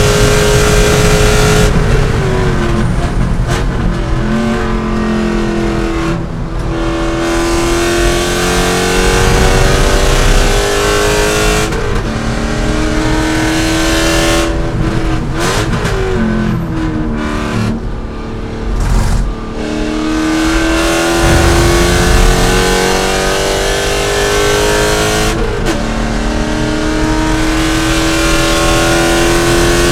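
C5 Corvette's V8 at racing speed, its pitch climbing steadily under full-throttle acceleration and dropping sharply several times at gear changes and under braking for corners.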